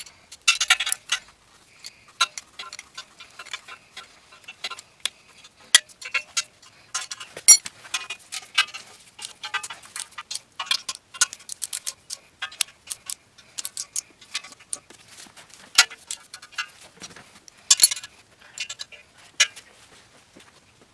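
Hand ratchet clicking in short irregular runs, with metal clinks, as exhaust header bolts are run in and tightened into the engine's aluminium threads.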